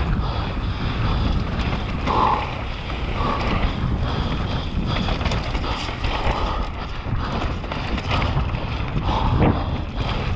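Wind rushing over the microphone of a mountain bike's rider-mounted camera while the bike descends a dirt singletrack at speed. Tyres roll over dirt and stones, with short clatters from the bike as it hits bumps.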